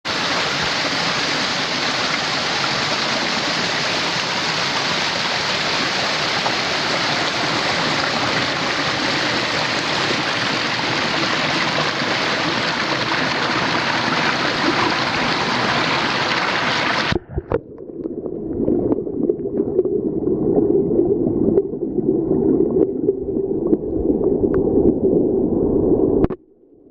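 Waterfall pouring into its plunge pool: a steady, even rush of water. About 17 seconds in, the sound abruptly turns muffled and lower, with a few clicks.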